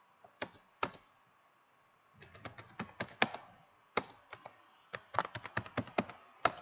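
Computer keyboard keystrokes in quick bursts as a username and then a password are typed, after two separate clicks in the first second.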